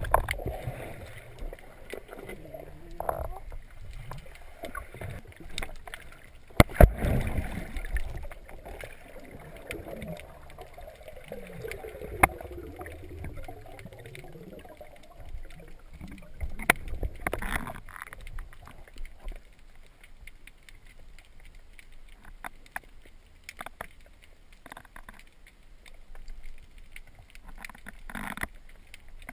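Underwater water movement during a spearfishing dive, with gurgling and sloshing and scattered sharp clicks and knocks, the loudest about seven seconds in.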